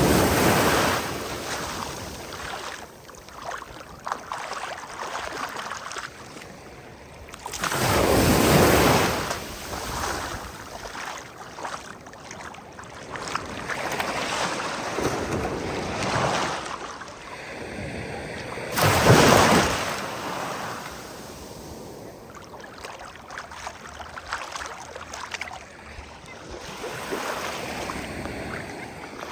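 Ocean waves breaking on the shore: three big crashes, one at the very start, one about eight seconds in and one about nineteen seconds in, with the hiss of surf washing in and out between them.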